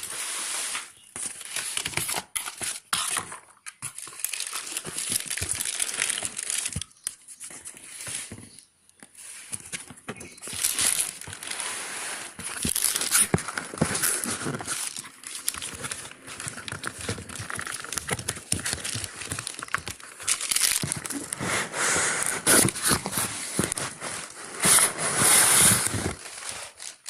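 Packaging being handled and unpacked by hand: irregular crinkling, rustling and tearing with sharp clicks, busiest in the second half.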